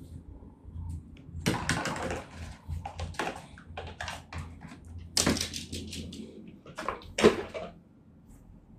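Rustling with irregular knocks and clicks of objects being handled and moved, with louder scuffling bursts about a second and a half, five and seven seconds in.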